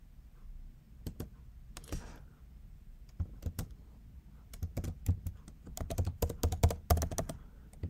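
Keystrokes on a computer keyboard: scattered single taps at first, then a quicker run of typing in the second half.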